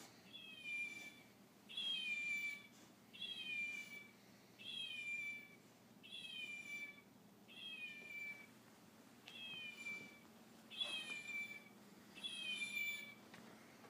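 Meowing plush toy fox sounding its meow over and over, nine times about every second and a half. Each meow is the same short call falling in pitch.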